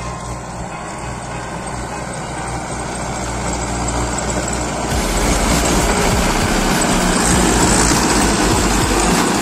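Tractor diesel engine running steadily and growing louder, with a broader rushing noise joining it about five seconds in.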